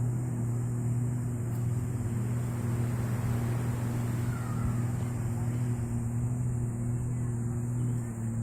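Jet ski engine running at a steady speed, a constant low hum with no revving.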